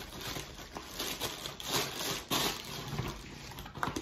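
Packing paper rustling and crinkling in irregular handfuls as a sneaker box is unpacked, with a couple of louder crinkles about halfway through.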